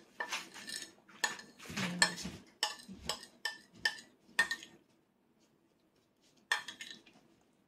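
Cutlery clinking against dishware in a run of quick, irregular taps that stops about halfway through, with one more clink near the end.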